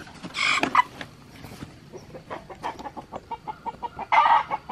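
Cornish Cross meat chicken clucking, a fast run of short clucks several a second starting about two seconds in. Two brief rustles, one near the start and one near the end.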